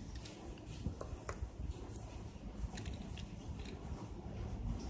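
LEGO plastic pieces being handled and fitted onto a small LEGO vehicle, with a few faint, short plastic clicks.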